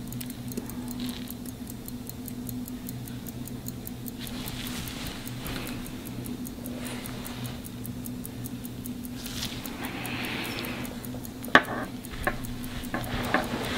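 Hamilton 992 pocket watch movement ticking fast and evenly, about five ticks a second, its balance wheel running freely now that the repaired watch has started. A few sharp clicks come near the end.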